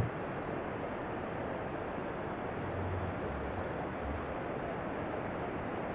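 Light drizzle falling on the leaves and undergrowth: a steady, even hiss.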